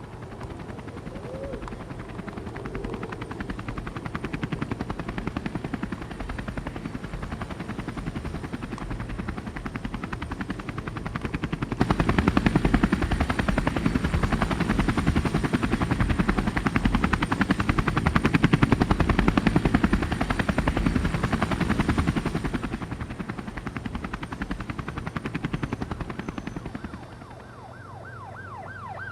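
Helicopter flying, its rotor chopping in a fast steady pulse; it suddenly grows louder about twelve seconds in, stays loud for about ten seconds, then fades away.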